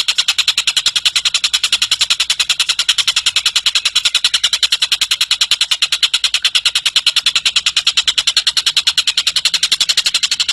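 A tengkek cililin bird giving a long, unbroken trill: a rapid, very even series of high notes, about ten a second.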